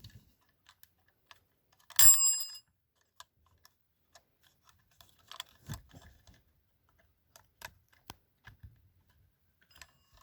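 Single ring of a Scotsguard wind-up fire alarm bell about two seconds in, a short ding fading within about half a second. Faint clicks of the bell's mechanism being handled come and go around it.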